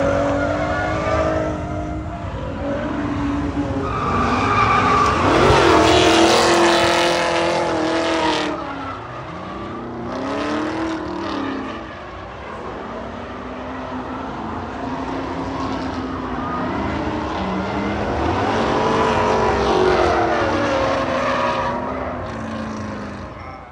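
Straight-piped Pontiac G8 GT's V8 exhaust revving up and down hard several times, loudest in a long pull a few seconds in, with tires skidding and squealing. The sound cuts off abruptly at the end.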